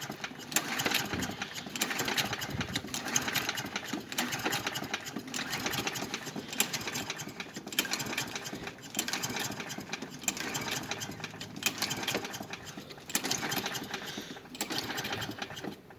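Lawn-Boy mower engine being pull-started again and again, the recoil starter spinning it over in a long series of pulls without it catching. The engine fails to start after sitting for about a week.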